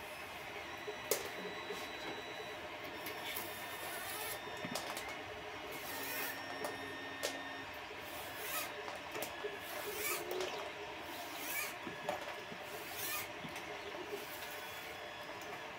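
Handling noise from a 3D printer's gantry: scattered small clicks and rubbing as hands work the plastic carriage and belt parts.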